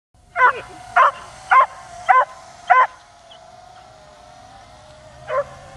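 A dog barking in a fast run of five barks, about one every half second, then a pause and one more bark near the end. A drone's steady whine runs underneath.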